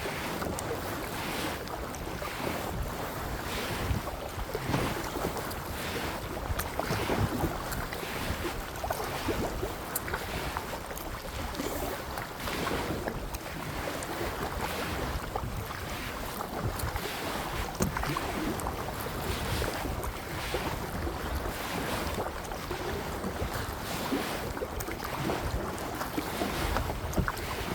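Kayak paddle strokes splashing and swishing through the water, about one stroke a second, with wind buffeting the microphone.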